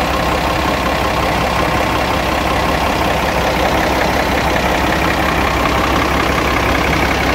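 Turbocharged diesel engine of a 1974 Mercedes-Benz 1620 bus idling steadily, heard close up at its open engine bay.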